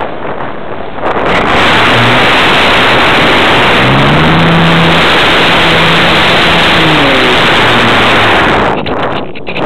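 Parkzone Radian motor glider's electric motor and propeller running, heard from a camera on the fuselage right beside the prop: a loud, steady rush of propeller wash and motor noise that starts about a second in and drops away near the end as the motor is cut.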